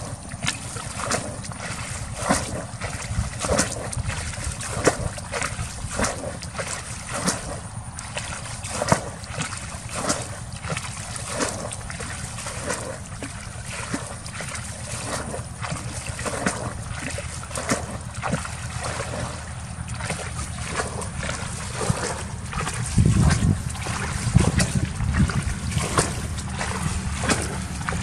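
Water being bailed from a shallow muddy pond with a plastic bucket: repeated scooping and splashing as bucketfuls are tossed out. A low wind rumble on the microphone grows louder in the last few seconds.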